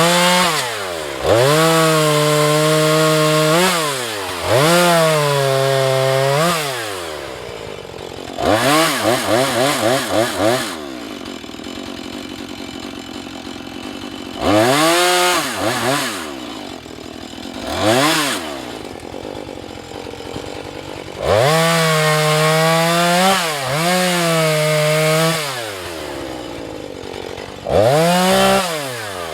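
Husqvarna 435 two-stroke chainsaw cutting wood, revved to full throttle and held there for a second or a few seconds at a time, about seven times, dropping back to idle in between. About nine seconds in the throttle is blipped quickly several times in a row.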